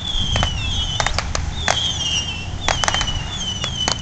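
Firecrackers popping at irregular intervals, about a dozen sharp pops, mixed with short high whistles that fall in pitch, over a low rumble.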